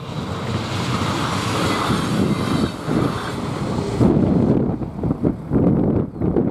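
Passenger train passing over a level crossing: a steady rushing rail and wheel noise that cuts off about four seconds in, leaving gusty wind noise on the microphone.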